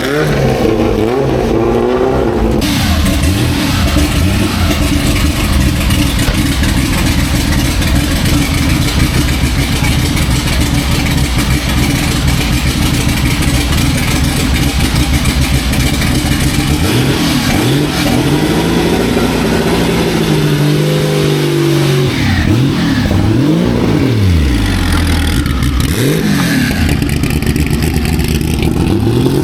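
Historic racing car engines running loud, with the engine note rising and falling several times in the second half as they rev. The sound changes abruptly about two and a half seconds in.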